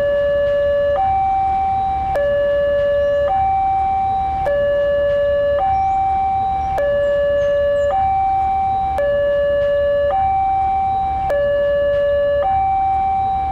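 Two-tone siren alternating evenly between a low note and a slightly higher note, each held a little over a second.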